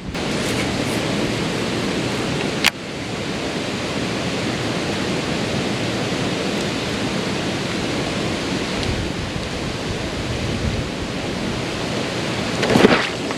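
Steady rushing outdoor noise, with a sharp click about two and a half seconds in and a brief louder swell near the end.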